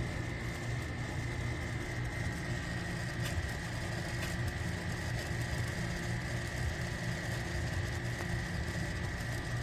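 Steady low mechanical hum with a thin, constant high-pitched whine above it, unchanging throughout.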